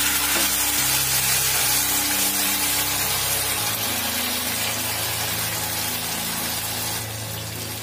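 Strained tamarind pulp poured into hot oil with cumin seeds and ginger in a nonstick pan, setting off a steady, hissing sizzle that eases a little near the end.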